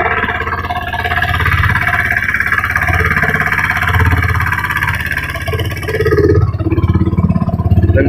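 Motorboat engine running steadily under way.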